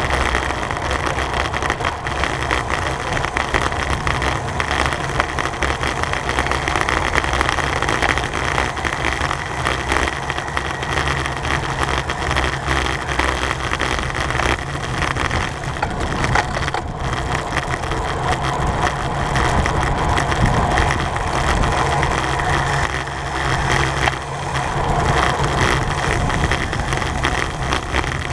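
Steady rush of wind and road noise on a camera mounted to a racing bicycle moving at speed.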